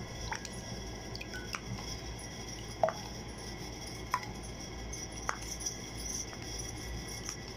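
About five light clinks of ice cubes and a plastic spoon knocking against a glass bowl as hot jelly is scooped and poured over the ice, spaced roughly a second apart over a steady faint hum.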